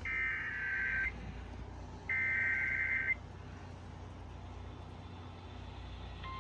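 Emergency Alert System SAME header on a NOAA Weather Radio broadcast: two buzzy one-second bursts of digital data tones, about a second apart, marking the start of a new warning. Faint radio hiss follows, and near the end the steady single-pitch weather radio warning alarm tone begins.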